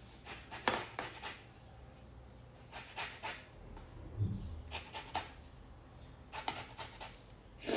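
Lemon rind being rasped across a handheld zester, short groups of scraping strokes every second or two. A soft low bump about four seconds in.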